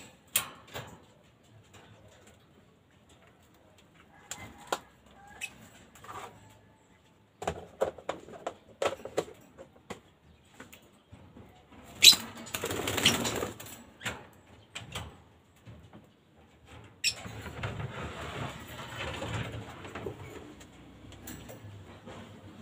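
Handling and cleaning around African lovebird cages: scattered knocks and clatter, a loud burst of rustling about twelve seconds in, and steady rustling from about seventeen seconds on, with the lovebirds' wings flapping.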